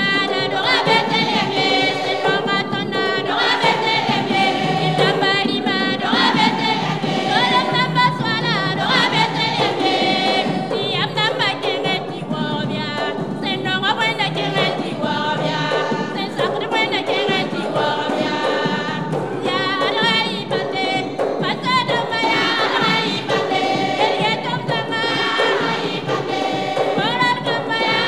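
A gospel choir of women's voices singing together, with a wooden box drum beaten by hand keeping the beat.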